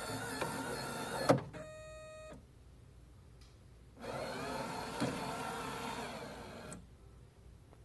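Rotimatic roti-making machine's motor and mechanism whirring for about a second, cutting off with a sharp click, then one short electronic beep. After a pause of a couple of seconds the mechanism whirs again for about three seconds, with a click partway through. This is the machine failing to start, stopping on an error after each attempt.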